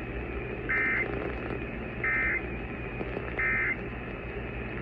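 Emergency Alert System end-of-message signal: three short bursts of warbling SAME digital data tones, a little over a second apart, over a steady low hum and hiss.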